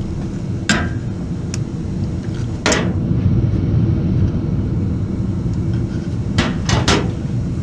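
Sharp clicks and knocks of pliers and fingers working at a stuck plastic hose connection on a Whirlpool Duet washer's water valve: one about a second in, another near three seconds, then three in quick succession near the end, over a steady low rumble.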